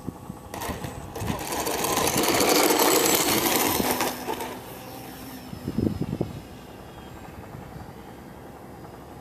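Radio-controlled T-28 model airplane flying close on its crosswind approach, its electric motor whining. The whine builds about half a second in, is loudest around two to four seconds and fades by about five seconds. A few sharp knocks follow near six seconds.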